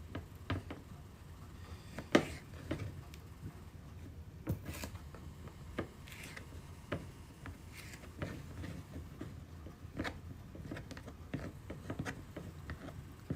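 Kitchen knife slicing food on a cutting board: irregular light taps and knocks of the blade on the board, with faint scraping.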